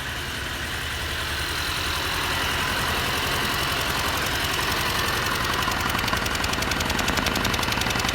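Mercedes M274 four-cylinder turbo petrol engine idling with a misfire on cylinder 3, which has low compression. It grows louder over the first few seconds, then holds steady, with a fast even pulsing from about six seconds in.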